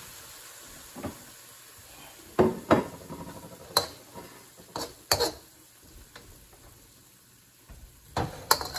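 Metal wok spatula scraping and clanking against a steel wok as chicken and vegetables in sauce are stir-fried, in separate strokes every second or so with a lull about six seconds in. A quiet sizzle runs underneath.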